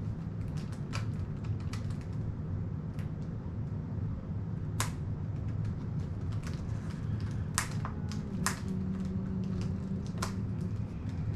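Irregular sharp clicks and taps, a few much louder than the rest, from a small object being handled in the hands, over a steady low hum.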